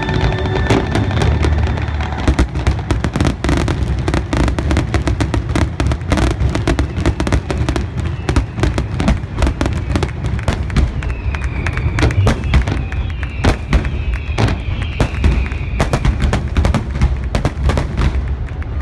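Aerial fireworks going off in a dense barrage, shell bursts and crackle following one another several times a second over a continuous deep rumble of booms.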